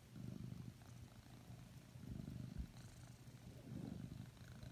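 A drowsy domestic cat purring softly. The purr swells and fades with its breathing, three times, about a second and a half apart.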